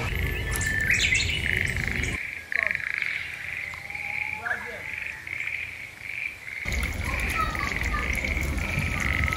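A steady, rapidly pulsing high chirping from an outdoor chorus of small animals, with a few faint knocks and clatters.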